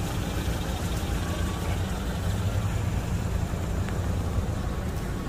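Car engine idling steadily, a low even rumble.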